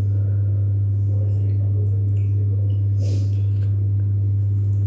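Steady low hum throughout, with faint voices in the background. About three seconds in comes a short slurp as a woman drinks a glucose-test drink from a bottle.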